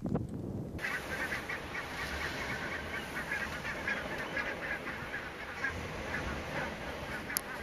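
A flock of barnacle geese calling, many short honking calls overlapping in a steady chorus that starts just under a second in.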